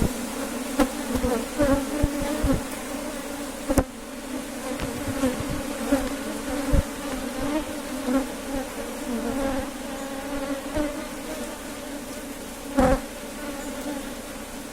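A colony of honey bees buzzing around an opened hive as its frames are inspected: a steady, dense hum, with a few sharp knocks, the loudest near the end.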